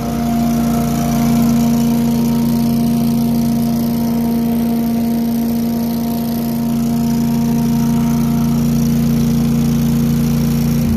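Billy Goat debris loader's 18 hp Vanguard V-twin engine and vacuum impeller running steadily at speed, a constant engine-and-fan drone.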